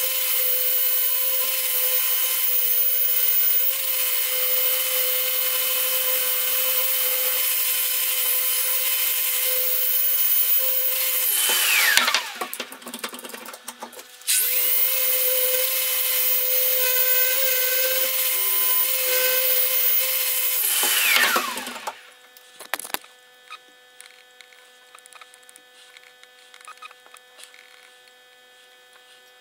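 Electric random orbital sander running against the steel of a rusty axe head, a steady high whine over a grinding hiss. It is switched off about 12 s in, its whine falling as it spins down, started again a couple of seconds later, and switched off once more about 21 s in, winding down to a faint steady hum with a few light clicks.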